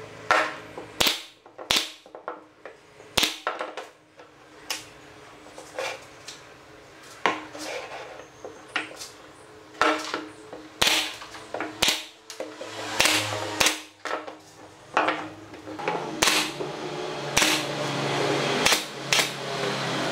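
Pneumatic brad nailer firing brads into wooden hexagon frames: a string of sharp shots, irregularly spaced, about one a second.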